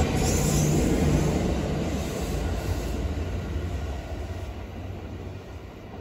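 Kintetsu electric train pulling away from the station platform, its wheels and motors rumbling on the track. Loudest at first, then fading steadily as it draws away.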